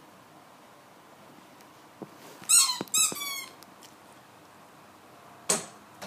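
Squeaky dog toy squeezed twice, about half a second apart, giving two loud high squeaks. A short sharp noise follows near the end.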